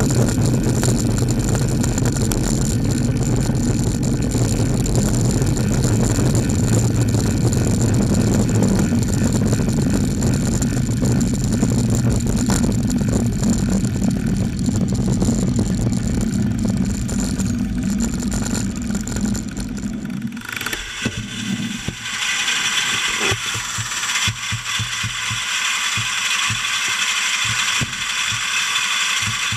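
Steady low rumble of riding in traffic, with a Seddon Atkinson lorry's diesel engine running close behind the bicycle. About twenty seconds in the rumble drops away and the bicycle's freewheel ticks quickly as the bike coasts.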